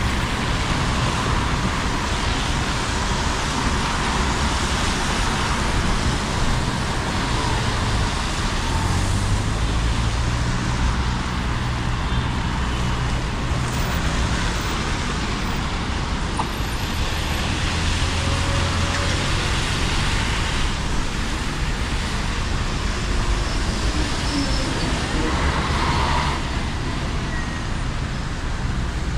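Road traffic on a wet city street: buses and cars running past with a steady hiss of tyres on the wet road and a low engine rumble that swells and fades as vehicles go by.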